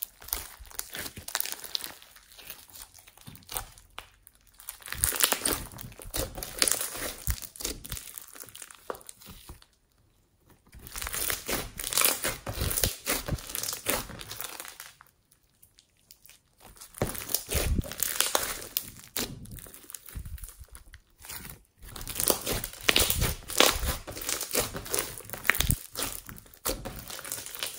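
Hands kneading, squeezing and pressing glossy slime packed with foam beads, making dense runs of small pops and crackles. The sound stops briefly twice, about ten seconds in and again around fifteen seconds.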